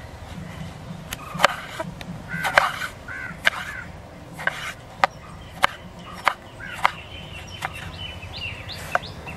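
Chef's knife chopping a tomato on a wooden cutting board: about a dozen separate cuts, each a sharp knock of the blade on the board, one or two a second. Birds call a few times in the background between the cuts.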